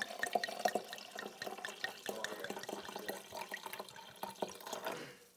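Water poured from a glass pitcher into a glass tumbler: a steady splashing, gurgling stream that thins toward the end and stops abruptly just before the end.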